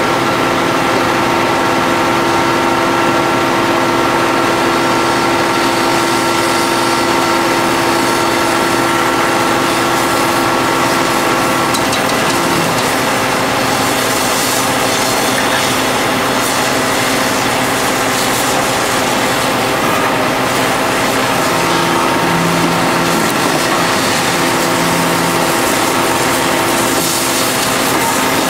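Hydraulic power pack of a pile extractor running steadily, a continuous machine drone with a steady whine that stops about twelve seconds in and comes back in short spells near the end.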